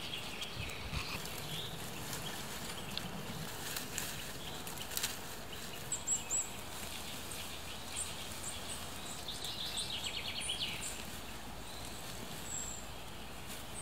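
Woodland ambience: a steady background hiss with scattered bird calls, short high chirps about six seconds in and again near the end, and a quick trill around ten seconds in. A few soft crackles come from moss being torn up from the forest floor by hand.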